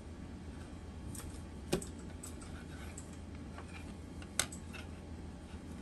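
Faint clicks and rustles of hands working yarn with a plastic crochet hook, with two sharper clicks, over a low steady hum.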